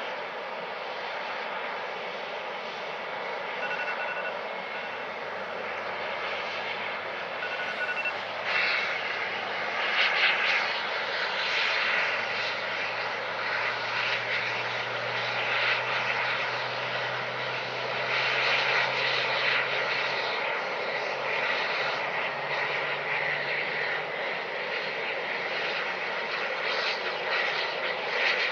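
Jet engines of a taxiing Icelandair Boeing 757 running at low taxi power: a steady roar and hiss that swells a little partway through.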